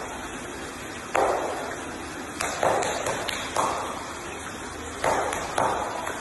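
A seal knocking against the glass wall of its tank: a series of irregular knocks, about six, each ringing briefly and fading.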